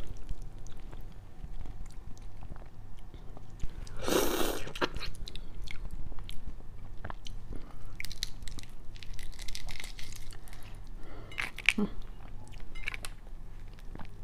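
Close-miked eating sounds from a large marinated shrimp: biting and chewing on the head, then small crackles and clicks as the shell is peeled by hand. There is one loud burst about four seconds in.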